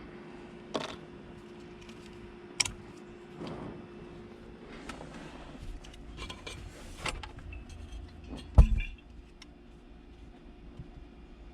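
Metal clinks and knocks of hand tools and small hardware while a stuck steering-wheel hub bolt is worked on, with one much louder knock about eight and a half seconds in.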